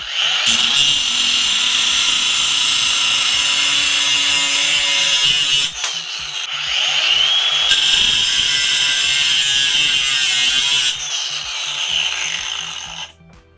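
FLEX 24V brushless 5-inch angle grinder cutting metal with a cut-off wheel: a loud, steady, high grinding screech that eases briefly about halfway, then carries on and stops near the end. The motor holds its speed under load without bogging down.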